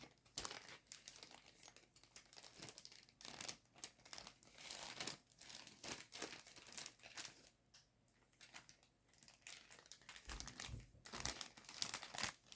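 Faint, irregular crinkling of the sealed plastic bag that holds a plastic model kit's parts as it is handled. There are a few soft low bumps near the end.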